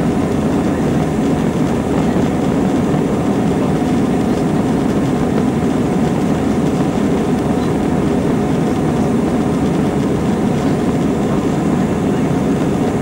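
Steady jet airliner cabin noise, engines and rushing air heard from a window seat in the climb after takeoff: a deep, even rumble that does not change.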